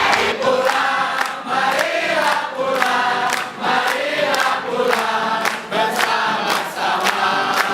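A group of people singing together in unison, with regular sharp beats running through the song.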